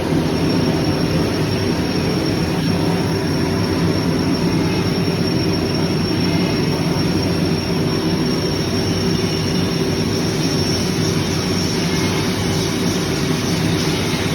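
CNC machine running: a steady, loud machining noise with a thin high whine over it.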